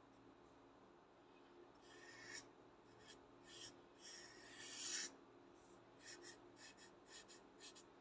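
Felt-tip whiteboard marker drawing on paper: a few longer scratchy strokes, the loudest about five seconds in, then a quick run of short strokes near the end.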